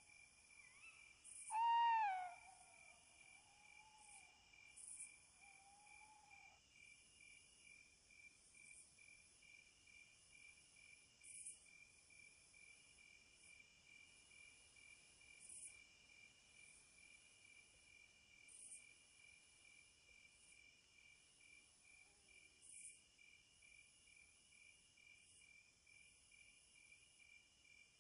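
Faint night chorus of crickets: a steady, fast-pulsing trill with a high hiss of other insects above it. About two seconds in, a single short arched hoot rises and falls over it and is the loudest sound.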